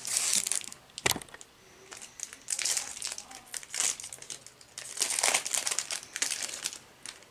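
Foil Yu-Gi-Oh booster pack wrapper crinkling in a series of short bursts as it is handled and torn open, with a sharp crackle about a second in.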